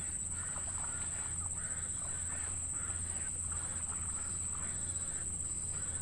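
Downy nestlings in a grass nest giving short, rapid calls, several a second. A steady high-pitched whine runs underneath.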